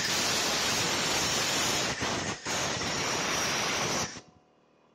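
Compressed-air blow gun hissing steadily as its nozzle blows out freshly tapped head bolt holes in an engine block, clearing chips and oil before thread inserts go in. The air dips for a moment just after two seconds and cuts off sharply about four seconds in.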